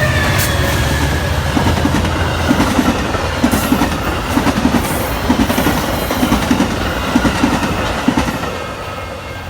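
Train passing close by: its wheels click over rail joints in regular paired clacks. A low locomotive engine drone drops away after the first couple of seconds, and the whole sound fades near the end as the train moves off.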